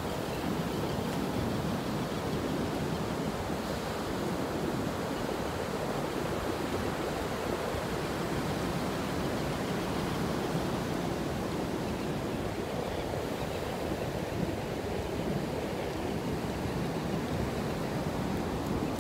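Ocean surf washing on a beach, a steady, even rush of noise with no breaks.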